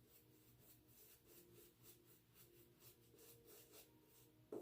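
Faint, scratchy strokes of a silvertip badger shaving brush working shave lather, about four strokes a second, with a short knock near the end.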